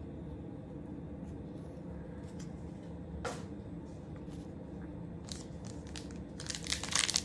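Trading cards and a foil card-pack wrapper being handled over a low steady hum, with a soft tap a little past three seconds in and crisp crinkling of the wrapper near the end.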